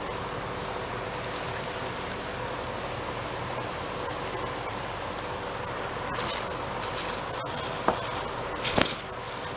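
Steady background hiss, with a few short clicks and smacks in the last few seconds as a Shiba Inu chews and licks watermelon taken from fingers.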